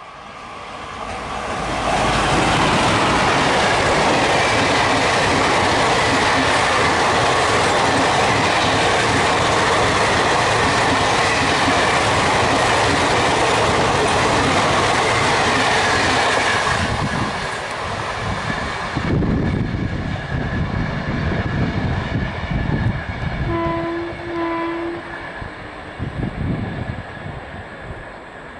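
WAP4 electric locomotive and the coaches of an express train passing close at speed: a loud rush and clatter of wheels on rails, with a faint steady high whine, building in the first two seconds and dying away after about fifteen seconds. Near the end a train horn gives two short low honks.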